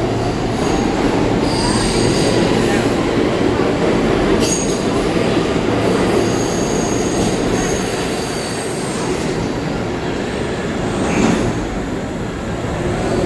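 R46 subway train running out of the station with steady wheel-on-rail rumble. High-pitched wheel squeal rings over the middle stretch, and sharp clacks sound about four seconds in and again near the end.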